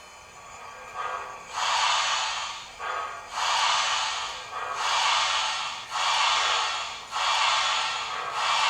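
Sound-decoder steam exhaust chuffs from an HO-scale MTH GS4 4-8-4 steam locomotive model's speaker: slow, hissing chuffs about one every 1.3 s, starting about a second and a half in and slightly quickening as the engine gets moving.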